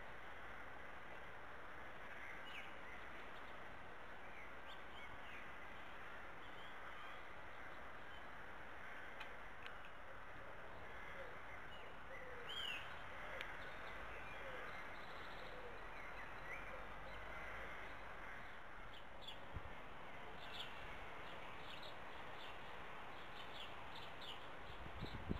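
Faint outdoor ambience of wild birds calling: short, scattered chirps and calls over a steady background hiss, with a quick run of chirps near the end.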